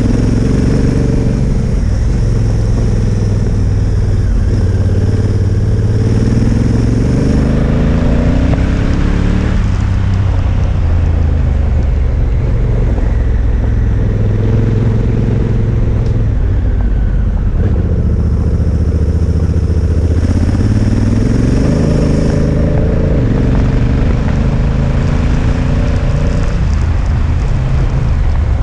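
Honda Africa Twin motorcycle engine running under way, its note climbing as the bike accelerates over the first ten seconds, dropping back, then climbing again from about twenty seconds in, over a steady rushing noise.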